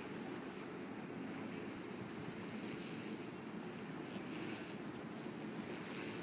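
A small bird chirping in three short runs of two to four quick, high, falling chirps, over a steady low outdoor background hum.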